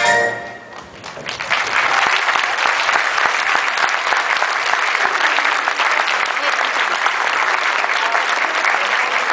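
The last note of the music ends, and about a second in the audience starts applauding, a dense, steady clapping that keeps going.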